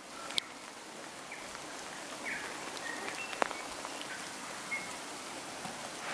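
Steady hiss of rain falling, with a couple of sharp ticks of drops.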